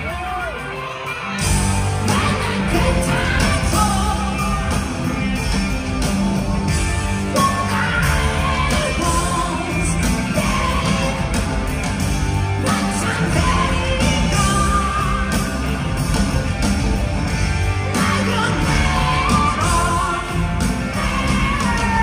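Hard rock band playing live in an arena, heard from the audience: electric guitar, bass and drums under a high, wailing male lead vocal. The band thins out briefly at the start and comes back in full about a second and a half in.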